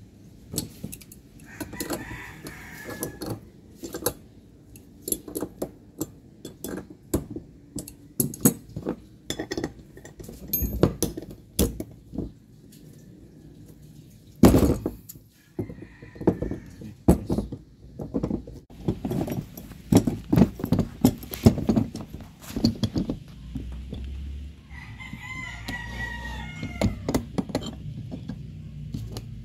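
A rooster crows twice, once near the start and once near the end, over scattered metallic clicks and knocks of hand tools at work.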